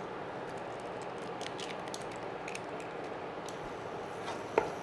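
Eggs sizzling in a pan of hot coconut oil, a steady hiss, with a few light spatula taps and one sharper click against the pan near the end.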